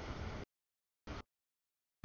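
Freight train of covered hopper cars rolling past, a low rumbling noise heard only in fragments: it runs for about half a second, cuts out to dead silence, and returns in a short burst about a second in as the audio feed drops out.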